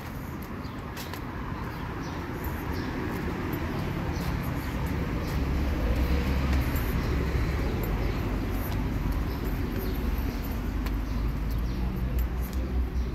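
City street traffic noise: a steady hum of passing vehicles, with a low engine rumble growing louder about four seconds in and holding through most of the stretch.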